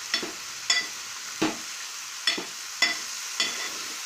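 Metal ladle stirring cut cluster beans and capsicum in an aluminium pot, clinking against the pot about six times, over a steady sizzle of the vegetables frying.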